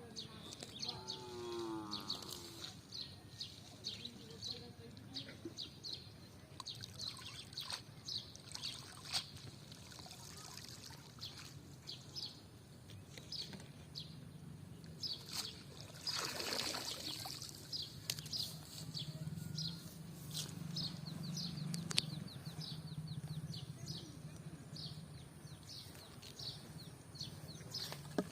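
Small birds chirping repeatedly throughout, over a low steady hum, with a brief water-like rush about sixteen seconds in.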